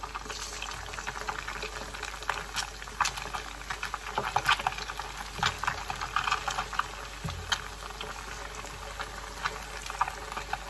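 Hot oil sizzling and crackling in a wok as noodle-wrapped beef mince balls deep-fry: a steady hiss with a dense run of small sharp pops.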